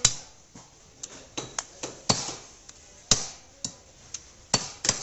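Butcher's knife chopping raw chicken pieces on a wooden log chopping block: about a dozen sharp chops at an irregular pace, the loudest right at the start, about two and three seconds in, and twice near the end.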